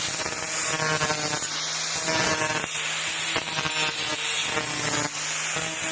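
Electric grinder running against a steel lawnmower blade: a steady motor hum under a loud grinding hiss that swells and eases with each pass. This is a quick pass on the blade's unsharpened back side to take nicks and flaws out of the edge.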